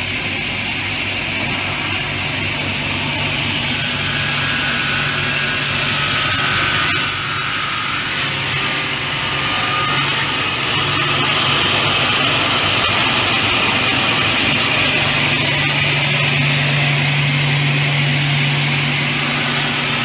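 Aluminium corner-key cutting machine running, its saw motors making a steady loud whine. From about four seconds in it gets louder, with a thin high-pitched tone over a low hum, as the blades cut the aluminium profile.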